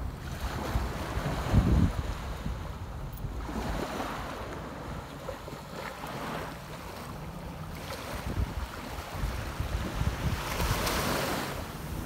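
Sea surf breaking and washing up the sand, swelling and fading every few seconds, with wind rumbling on the microphone.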